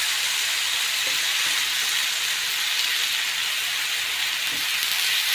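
Flattened rice, grated coconut and country sugar sizzling steadily in a hot pan, a constant hiss as the melting sugar gives off its water.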